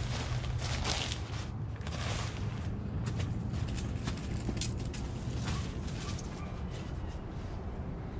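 Soft, irregular rustling of a bivy sack's nylon shell being handled and turned over, with a few small clicks, over a steady low rumble.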